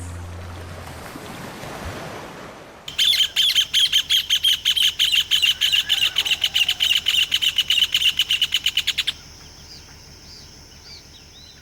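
Rufous hornero song: a loud, fast run of sharp repeated notes, about six or seven a second, quickening before it stops abruptly. After it there is a faint steady high-pitched buzz with a few soft chirps.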